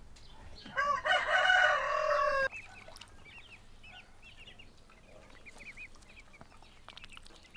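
A rooster crows loudly for about a second and a half, cut off abruptly. Then a flock of ducklings peeps steadily, with many short high cheeps overlapping.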